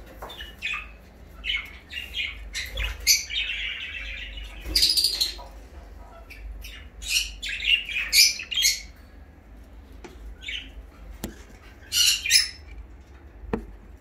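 Caged budgerigars chirping and squawking in many short, separate calls, with a denser scratchy chatter about three seconds in. A couple of sharp clicks come near the end.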